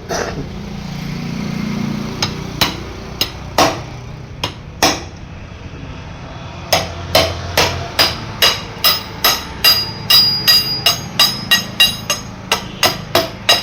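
Hammer blows in woodworking: a few spaced strikes, then from about seven seconds in a steady run of about three blows a second, each with a short metallic ring.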